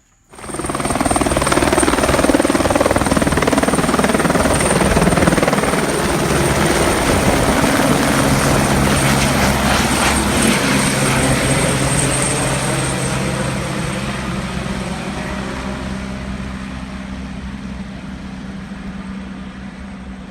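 Helicopter running loud as it lifts off from a helipad and departs, its rotor noise steady at first and then slowly fading over the last several seconds as it flies away.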